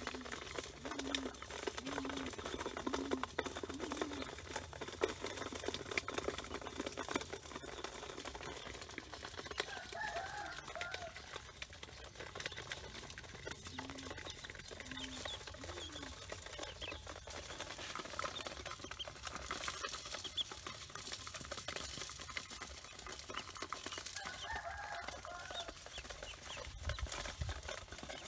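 Farmyard fowl calling: a run of short, low clucks about once a second at the start and a few more around the middle, with occasional higher calls. Faint clicks and scratching run over a steady hiss.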